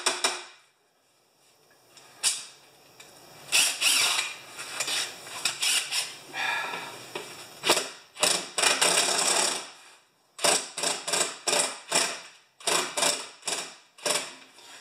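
Cordless drill with a socket run in repeated short bursts on the snowblower's skid-shoe bolts, which are not coming loose.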